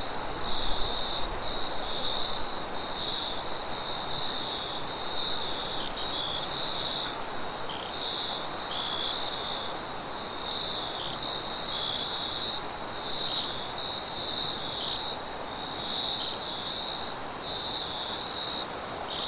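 Crickets chirping in a steady, continuous chorus, with a soft, even rush of wind beneath.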